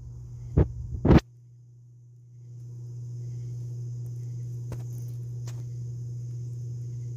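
Two short knocks about half a second apart near the start, then steady outdoor background: a low hum with a faint high hiss, dipping quieter for about a second before it comes back.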